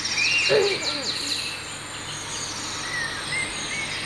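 Songbirds chirping, with quick high trills and short whistled notes over one another.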